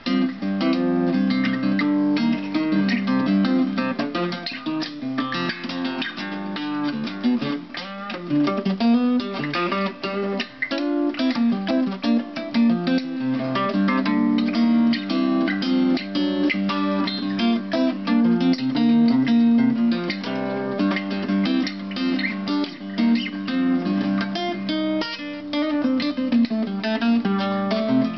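1937 Harmony Supertone archtop acoustic guitar played solo in an improvisation: a quick flow of picked notes and chords. The guitar is set up on a mocked-up bridge to lower its action.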